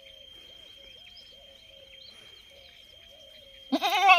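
A young male goat bleating once near the end, loud and quavering. Before it come a few quiet seconds of faint bird calls and chirps.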